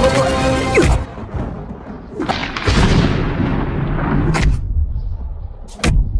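Animated film soundtrack: music breaks off about a second in, giving way to action sound effects, a swelling rumbling boom and then two sharp cracking impacts.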